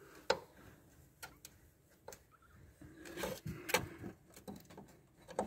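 Faint, scattered clicks and light knocks of a steel pry bar being handled and set in place against an engine mount, with some low rubbing in the middle.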